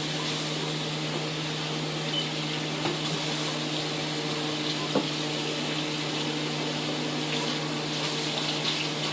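A steady low mechanical hum over a constant even hiss, with a faint click about five seconds in.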